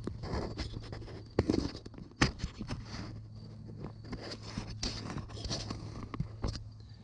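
Scattered knocks, clicks and scrapes of hands and tools working on machinery, with footsteps, over a steady low hum; the two sharpest knocks come about a second and a half and two seconds in.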